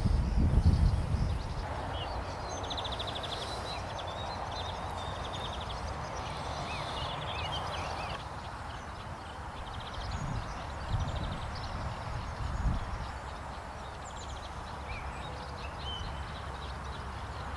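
Outdoor riverside ambience: small birds chirping and trilling over a soft steady rush, with a few low rumbles of wind or handling on the microphone near the start and again about two-thirds of the way through.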